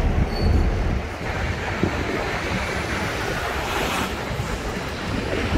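Wind buffeting the microphone on the open top deck of a moving double-decker tour bus, in low gusty rumbles, over the steady noise of city traffic.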